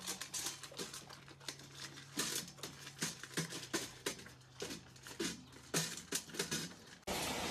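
A dog crunching dry kibble from a stainless steel bowl, with a chicken pecking at the same bowl: quick, irregular clicks and clinks of food and beaks against the metal. Near the end it cuts to the steady rush of running water.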